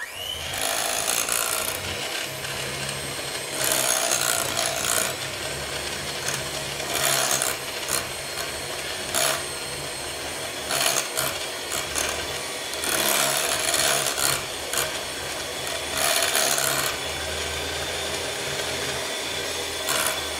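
Electric hand mixer with a single beater running at a steady hum while whipping a granulated-sugar scrub in a glass measuring jug, with gritty scraping surges every few seconds as the beater works through the sugar against the glass.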